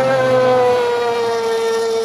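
A siren sounding one long, steady tone that sags slightly lower in pitch.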